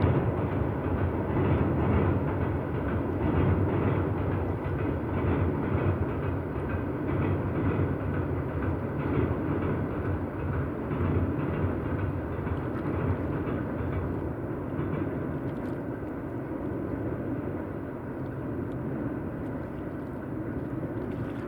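A train rolling across a railway bridge: a steady heavy rumble with the rhythmic clatter of wheels over rail joints. It slowly grows a little quieter toward the end.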